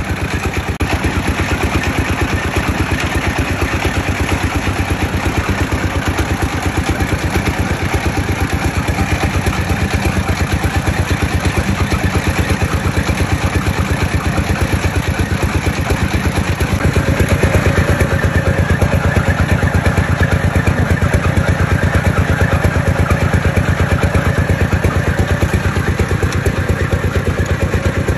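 Screw-type oil press (expeller) running with its drive engine, a steady engine sound with fast, even pulses. It grows somewhat louder and fuller a little past halfway through.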